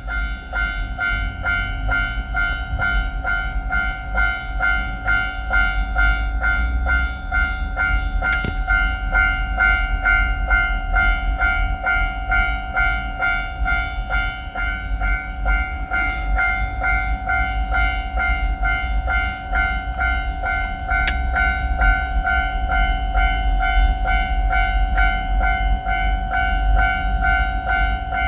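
Japanese railway level-crossing alarm ringing its steady, evenly repeated two-tone 'kan-kan' warning, with a low rumble underneath.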